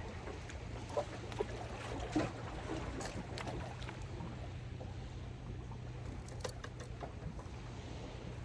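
Steady low hum under a wash of outdoor water and wind noise, with a few light knocks about one to two seconds in.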